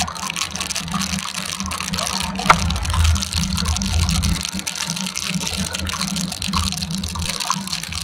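Rain and tyre spray hissing on a wet road while riding a motorcycle through a downpour, with the motorcycle's low engine drone underneath. A single sharp tick about two and a half seconds in.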